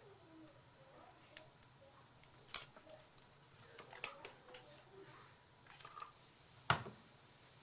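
Scattered light clicks and taps of paper crafting: paper and small tools being handled and set down on a desk, the sharpest tap about six and a half seconds in.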